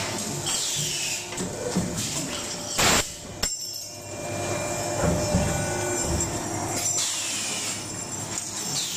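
Hydraulic edge-curling machine on a colander production line running through a cycle: steady mechanical noise, with a falling high whine near the start and again near the end, and a short loud burst about three seconds in.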